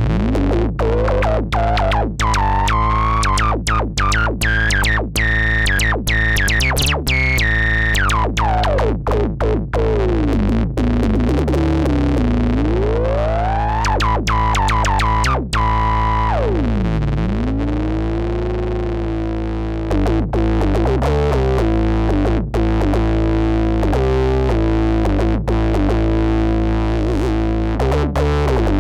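Novation Bass Station II analogue synthesizer playing a heavy bass patch over a steady pulse, while a bright filter sweep rises, falls and rises again through the first half, then settles into a held tone.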